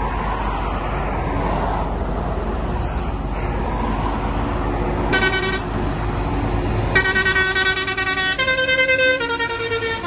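Road traffic and a convoy passing on a dual carriageway, with a low engine rumble, led up by a Claas Lexion combine harvester. About five seconds in a vehicle horn gives a short toot, and over the last three seconds horns honk in long notes that change pitch.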